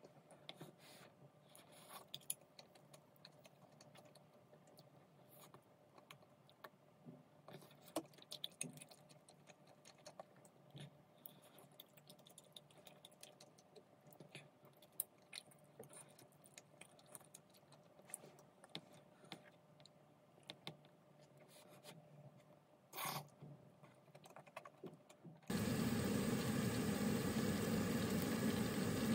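Faint scattered clicks and taps of chopsticks against a plastic takeout container and bowl while tteokbokki is eaten. Near the end, a sudden loud steady bubbling of instant ramen boiling in a pot on the stove.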